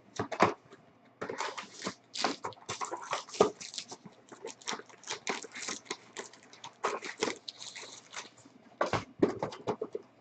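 Trading-card boxes and packs being handled and unwrapped: a dense run of irregular crinkles, crackles and light taps from plastic wrapping and cardboard.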